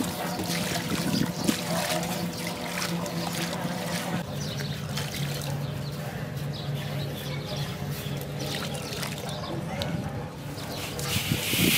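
Water sloshing and trickling in a large metal basin as brass scrap grains are swirled and washed, with water poured off over the rim. A steady low hum runs underneath.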